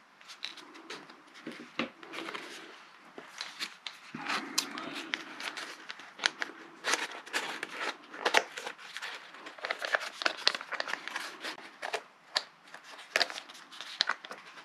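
Irregular clicks, taps and short rustling scrapes of small parts handled by hand: a wheel and white plastic wheel pant being fitted against a model plane's fuselage.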